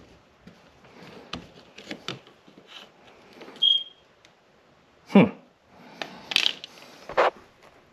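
Scattered clicks and knocks of hand tools and hardware being handled, with one short high beep a little under four seconds in and a louder sharp scrape about five seconds in.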